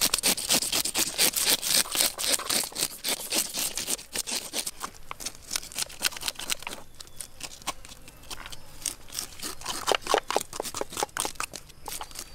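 A toothed plastic fish scaler scraping scales off a whole fish in quick repeated strokes, thickest over the first few seconds, then sparser with some sharper clicks.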